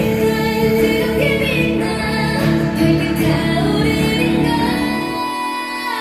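Pop song with female group vocals over a full backing track. Near the end the bass and low beat drop out, leaving the higher parts.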